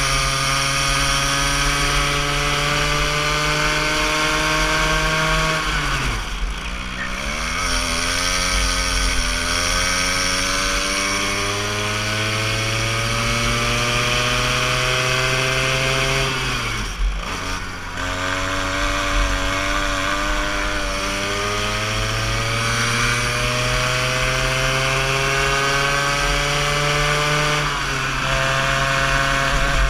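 Go-kart engine heard from the driver's seat, its pitch climbing steadily as the kart accelerates, then dropping sharply three times, roughly every eleven seconds, as the driver lifts off for the corners.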